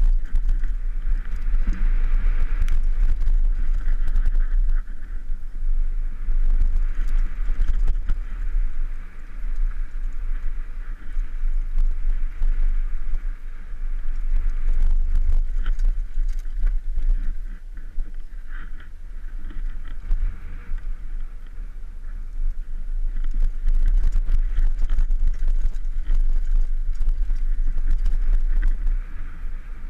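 Mountain bike ridden fast down a dry dirt trail: steady wind rumble on a helmet-mounted camera's microphone, with tyre noise on the dirt and many small rattles and knocks from the bike over bumps.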